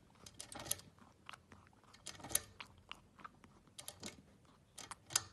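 Guinea pig drinking from a water bottle's metal sipper spout: faint, irregular clicks and crackles as its teeth and tongue work the spout.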